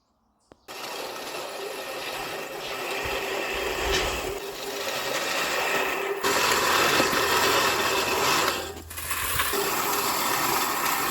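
A non-gas lawn mower with a grass catcher cutting grass, with a continuous rattling, whirring mechanical noise. The noise shifts about six seconds in and dips briefly near the end.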